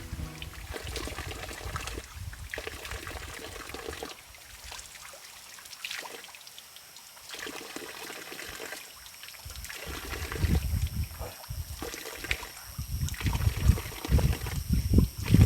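Water trickling and splashing at a small waterfall, with uneven low thumps growing stronger over the last few seconds.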